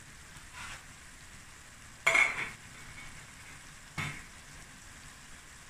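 Stir-fry sauce and vegetables sizzling faintly and steadily in a stainless steel pan on high heat. A loud kitchen clatter comes about two seconds in, and a lighter knock about two seconds after it.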